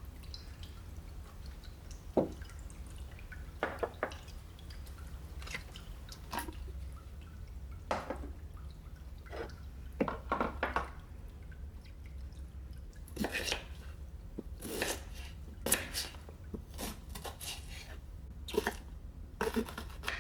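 Kitchen prep sounds: irregular light taps, clicks and small clatters of utensils and ingredients being handled, more frequent in the second half, over a low steady hum.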